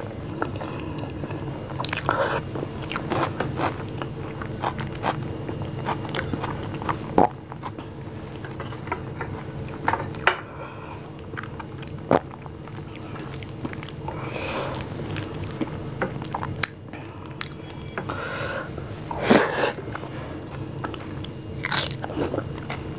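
Eating sounds: fingers squishing and mixing rice with mashed bhorta and dal on a plate, and mouthfuls being chewed, with sharp wet clicks and smacks scattered throughout.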